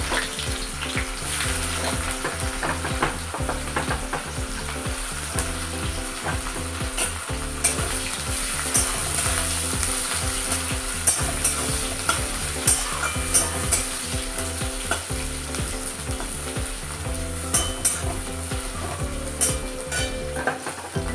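Sliced red onions frying in hot oil and ghee in a kadai with a steady sizzle, stirred and scraped with a metal spatula that clicks against the pan many times.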